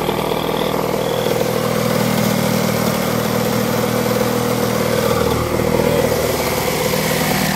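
KTM 85 single-cylinder two-stroke engine in a custom quad bike, running steadily, with the level holding even throughout.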